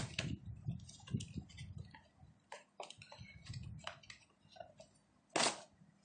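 A power strip's cardboard box being opened and its contents handled: scattered small clicks, taps and rustles, with one short louder swish about five and a half seconds in.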